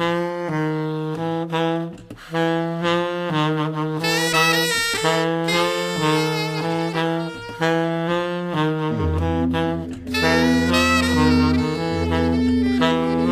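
Instrumental music: a lively melody of short notes over a repeated low note, with a held deep bass note coming in about nine seconds in.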